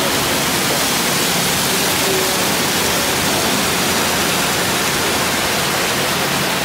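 Artificial waterfall pouring down a rock face into a pool, a steady, loud rush of falling water.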